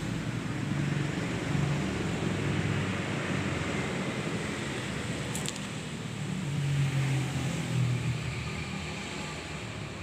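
A motor running steadily with a low drone that swells twice, and one short high click about halfway through.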